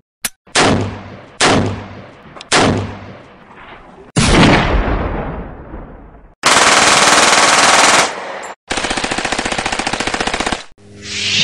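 Gunshot sound effects: a click, then three single shots with echoing decays and a heavier bang about four seconds in, followed by two long bursts of rapid machine-gun fire.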